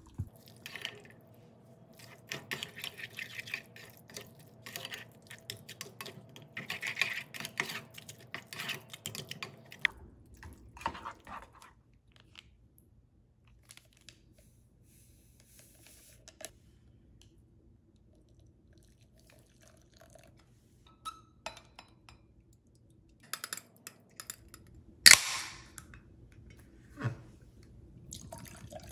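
A silicone spatula stirring brown sugar into cooked tapioca pearls in a small saucepan: a busy run of soft scrapes and clicks for about ten seconds. After a quiet stretch comes one short, sharp hiss, a can of makgeolli being opened, followed by a smaller click.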